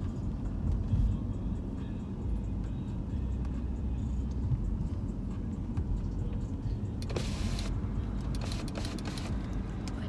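Car interior noise while driving slowly: a steady low engine and tyre rumble, with short bursts of hiss about seven and nine seconds in.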